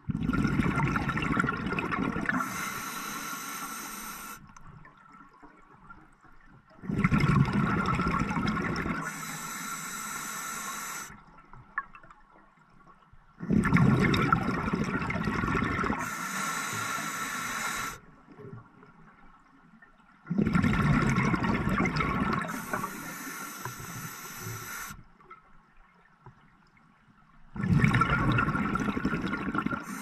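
Scuba diver breathing through an open-circuit regulator underwater: five breaths about every seven seconds. Each is a loud bubbling rush followed by a thinner high hiss, with quiet in between.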